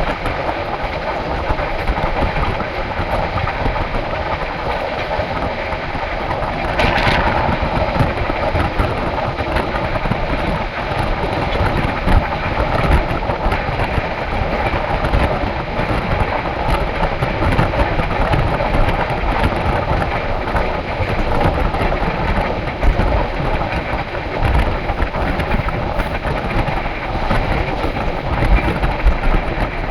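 Passenger train running on the rails, a steady rumble of wheel and track noise, with a short louder burst of noise about seven seconds in.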